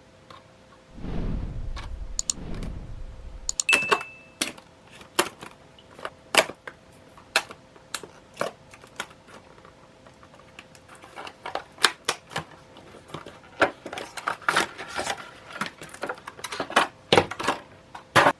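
Irregular sharp clicks and taps of small hard objects, coming closer together near the end, after a low rumble in the first few seconds.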